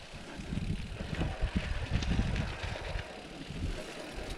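Wind buffeting the microphone over the uneven low rumble of a mountain bike rolling along.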